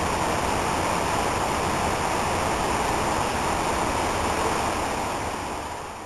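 Shallow stream running over rocks and pebbles: a steady rush of water that fades out near the end.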